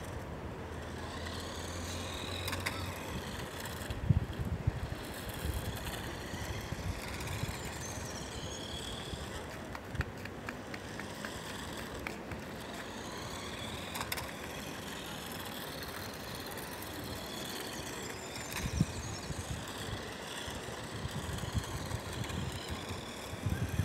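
A small radio-controlled car's motor whining up and down in pitch as it drives around at a distance, with a few brief low rumbles on the microphone.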